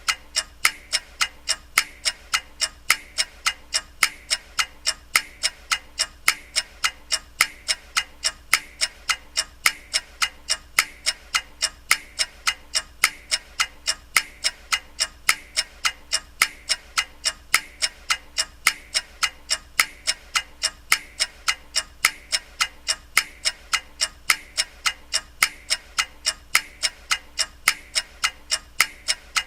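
Ticking clock, steady and even at about two ticks a second.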